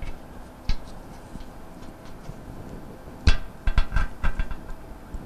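Steel hex bolts clicking against a cast-iron condensate pump tank as they are pushed by hand into its flange bolt holes through a new gasket: a light tap under a second in, then a few sharper metallic clinks a little past three seconds in.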